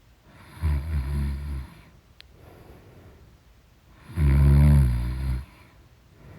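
A woman snoring loudly: two long snores about three seconds apart, the second louder and longer than the first.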